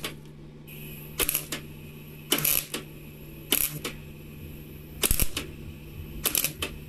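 MIG welder striking in short bursts, five quick crackling tack welds about a second apart, as small dots are laid on a thin steel car body panel. A steady low hum runs underneath.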